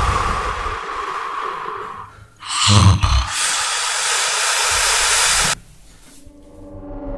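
Loud snoring: two long, hissing snores, each opening with a low rattle. The second cuts off suddenly about five and a half seconds in.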